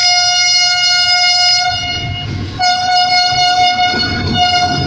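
Diesel locomotive's horn sounding on a single note as it approaches and passes: one long blast, a short break, then a shorter blast and a brief final one. Under the horn is the low rumble of the locomotive and the train.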